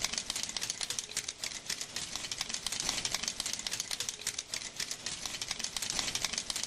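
Hand-tufting gun running, its needle punching yarn into the backing cloth with a rapid, even clicking.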